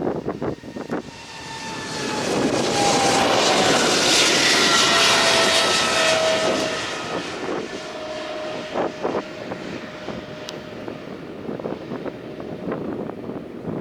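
Boeing 777-300ER's GE90 turbofan engines at takeoff power as the jet passes: the engine noise swells to a peak about four seconds in and then fades, its whining fan tones sliding down in pitch as it goes by. Wind buffets the microphone at the start and end.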